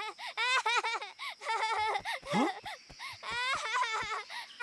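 Cartoon mouse deer character laughing gleefully, a high-pitched cackle in quick repeated bursts.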